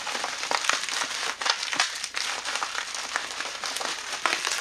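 Plastic bubble wrap crinkling and crackling with many sharp little clicks as it is pulled and unwrapped from a camera lens.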